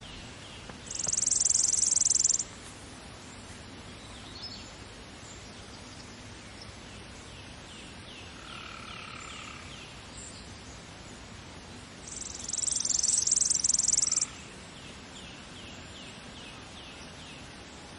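Chipping sparrow singing: two songs, each a rapid, dry, high trill on one pitch lasting about a second and a half to two seconds, the first about a second in and the second about twelve seconds in. Fainter, slower series of lower notes from other birds and a steady hiss of outdoor background fill the gaps.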